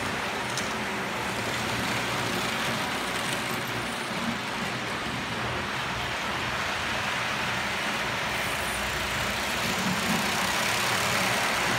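HO-scale model train running on the layout's track: a steady rumble of wheels and motor, a little louder about ten seconds in as a train passes close.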